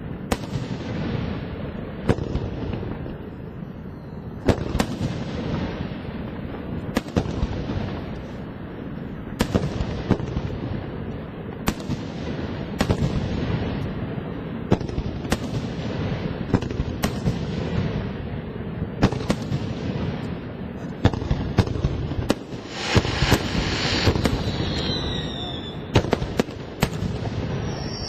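Aerial fireworks show: shell after shell bursting with sharp booms every second or two over a continuous low rumble. About two-thirds of the way through a hissing crackle rises, and near the end a few falling whistle tones sound.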